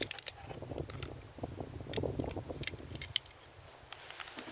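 Brass 10mm cartridges clicking as they are handled and pulled from a plastic cartridge block: a scatter of sharp light clicks with some rustling.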